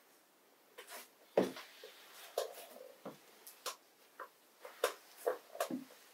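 Hands rubbing and patting a freshly shaved, smooth bald scalp: skin on skin, close up. It starts about a second in as a run of short, irregular rubs and taps.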